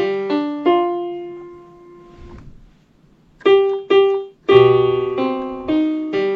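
Keyboard played slowly in single notes and simple chords, each note struck and left to fade. There is a short pause about halfway through before the playing resumes.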